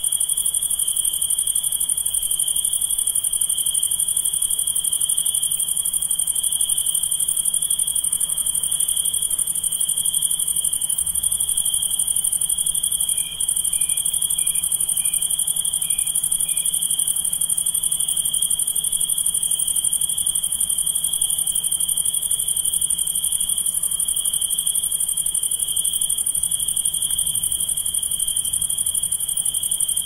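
Night chorus of crickets and katydids: a steady, unbroken high trill with a shriller hiss above it. About halfway through, a brief run of six short, faint notes sounds beneath it.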